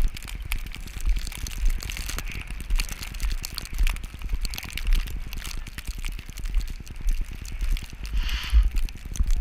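Wind buffeting a GoPro's microphone in a snowstorm: an uneven, gusting low rumble with irregular crackles.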